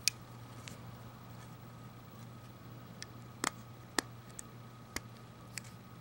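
Leatherman Sidekick multitool's steel implements clicking as they are folded open and shut in the hand: a few sharp metallic clicks, the loudest right at the start and about three and a half and four seconds in, over a faint steady hum.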